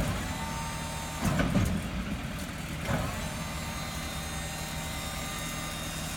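Garbage truck idling with its hydraulics running as the lift is lowered, a steady low hum with a faint whine over it. There are a couple of short knocks about a second and a half and three seconds in.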